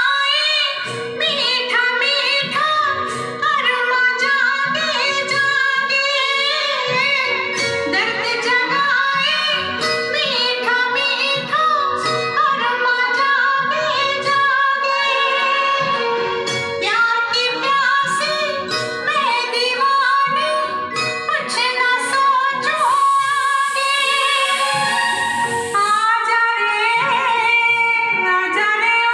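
A vinyl record playing on a Rotel turntable: music with a woman singing.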